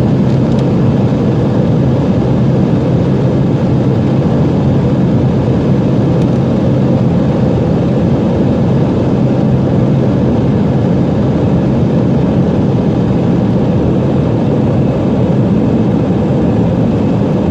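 Jet airliner at takeoff power, its engine and airflow noise heard from inside the passenger cabin as a loud, steady rumble with no breaks.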